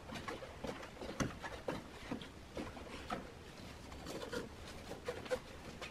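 Irregular soft rustles and light knocks: hands pressing cement-soaked egg cartons into a metal ring mould and shifting a brick on a plastic tarp.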